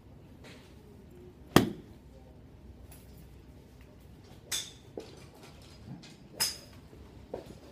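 Golf club striking a ball off a driving-range mat: one sharp, loud crack about one and a half seconds in. Several fainter sharp clicks follow later.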